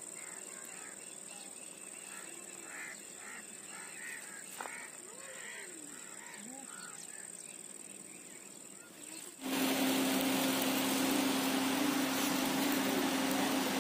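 Birds calling over open fields, with short repeated calls and a steady high-pitched tone behind them. About nine seconds in, this cuts off suddenly to a much louder, steady rushing noise with a low hum.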